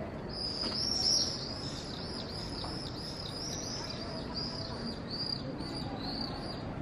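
A small bird calling: a quick run of short, repeated chirps, about three a second, over a low outdoor background murmur.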